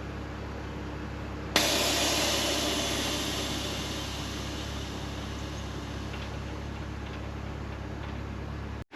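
Steady low running noise of a 1964 VW Beetle's air-cooled flat-four while driving. About a second and a half in, a sudden loud rush of hiss starts and slowly fades over the next few seconds.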